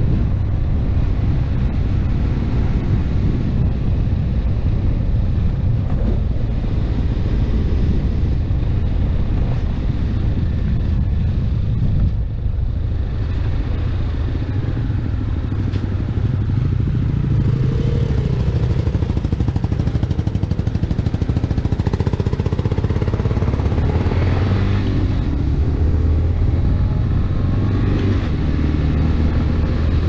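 Motorcycle engine running while riding along a dirt road, with wind noise on the microphone. The engine note rises and falls a few times in the second half as the rider works the throttle.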